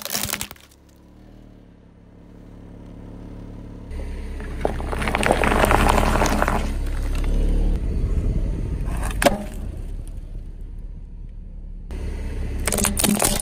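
A car tyre rolling slowly over objects on pavement, with a low rumble under a series of crushing sounds. Plastic cracks at the start as a toy car is flattened. Paper cups crumple with dense crackling about five to seven seconds in, a single sharp crack comes near nine seconds, and hard plastic snaps and cracks near the end as a Rubik's cube is crushed.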